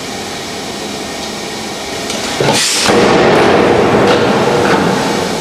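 Hydraulic press running steadily, then a sharp crack about halfway through as it bears down on a hard drive, followed by louder running with a steady hum for about two seconds while it crushes the drive.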